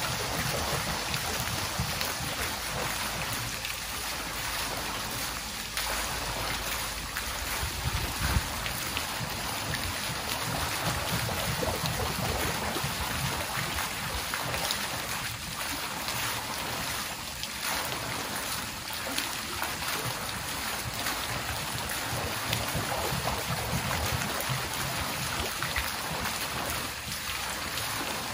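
Water dripping and trickling continuously, a dense steady patter of many small drops and splashes.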